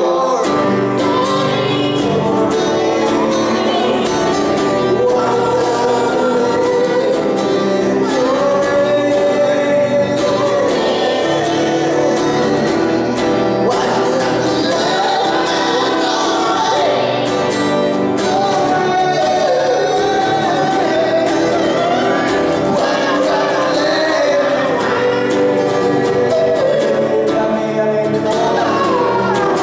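Live acoustic guitar strummed steadily under two voices singing a song through microphones.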